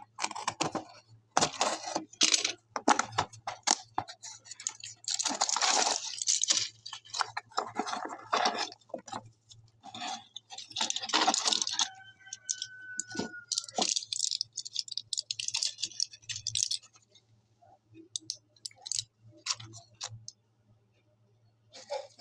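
Parcel of medicine packs being handled and unpacked: irregular rustling and crinkling of packaging, with tearing and small clicks and clinks as the boxes and packs are moved about. A short squeak about halfway through.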